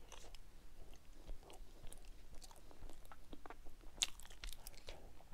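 A person chewing taro (pidalu) with the mouth close to the microphone, with many small mouth clicks and a sharper click about four seconds in.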